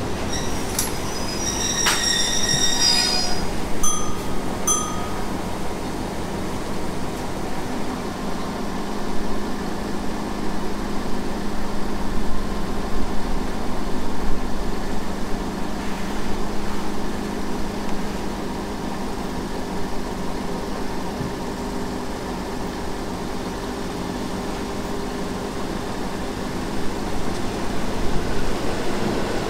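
Steady low hum of a diesel train idling at a standstill, with a few brief high-pitched tones in the first few seconds. Near the end an approaching Hitachi RHN diesel railcar grows louder.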